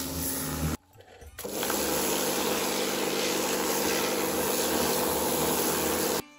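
Kärcher K2 electric pressure washer running, its motor humming steadily under the hiss of the water jet striking a mossy rock. The sound drops out for about half a second near the start, then returns and cuts off suddenly just before the end.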